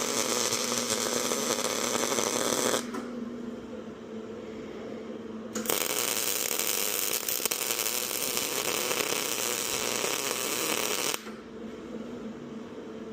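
Welding arc crackling while plug welds are filled into a car's steel quarter panel. One weld stops about three seconds in; a second starts about five and a half seconds in and stops near the end.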